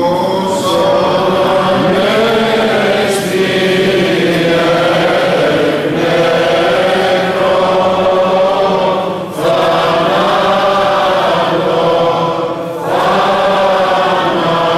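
A man's voice chanting a Greek Orthodox prayer over the church's microphone, in long held phrases with three short breaks for breath.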